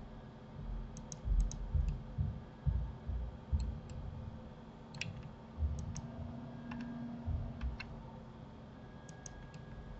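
Irregular clicks of a computer mouse and keyboard, coming in small clusters, with several dull low thumps among them.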